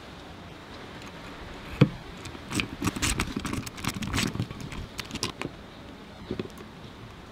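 Metal clinks and clicks from a socket wrench being fitted and turned on the clamp bolt of a scooter's steel front-brake cam lever: one sharp clink about two seconds in, then a run of irregular clicks for about three seconds and a last one near the end.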